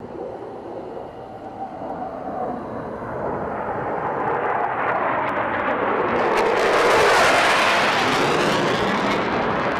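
Military jet aircraft, a bomber with a fighter escort, flying past: a jet roar that builds steadily and peaks about seven seconds in, with a sweeping, swirling tone as it passes.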